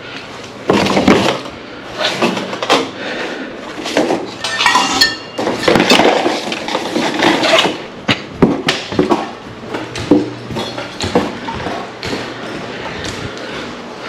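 Hard objects being handled: irregular knocks, clatter and metallic clinks, with a ringing clink about four to five seconds in, over a faint steady hum.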